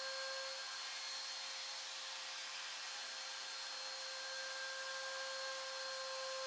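Trim router motor running at speed and routing into the MDF fence: a steady high whine over a hiss of cutting. The whine grows weaker from about half a second in until about four seconds in, then returns.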